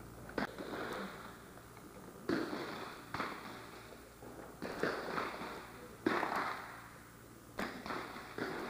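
Smallbore .22 rimfire target rifles firing on a 50 m prone range: about seven sharp cracks from different shooters at irregular intervals, each trailing a short echo.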